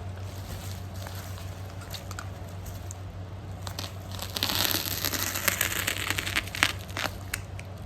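Plastic packaging crinkling and crackling as it is handled and pulled open. It is faint at first, then louder with many sharp crackles from about halfway through.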